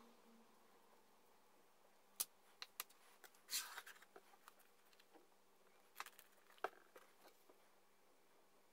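Faint handling sounds: a few light clicks and taps as small wooden wheel parts and a clear plastic sheet are put down on a cutting mat. A short scraping rustle comes about three and a half seconds in.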